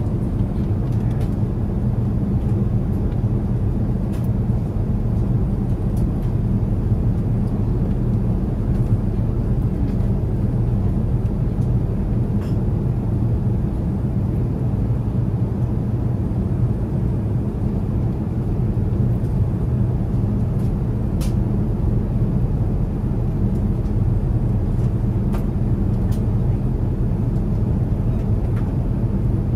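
Steady cabin noise of an Airbus A380 in the climb: an even low rumble of engines and rushing air that holds constant throughout, with a few faint ticks.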